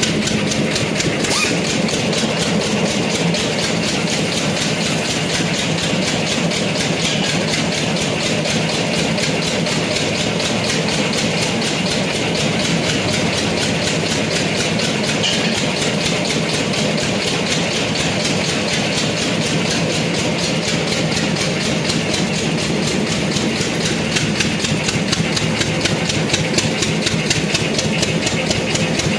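A machine running steadily with a fast, even pulse.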